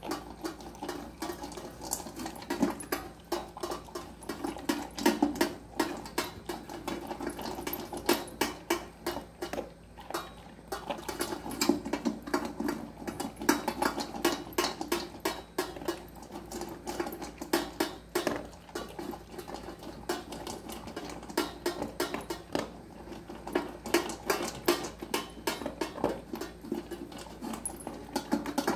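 Red-nose pit bull chewing and crunching raw whole fish from a stainless steel bowl, an irregular run of rapid wet clicks and crunches. Metal clinks come from the bowl and the dog's chain collar knocking together.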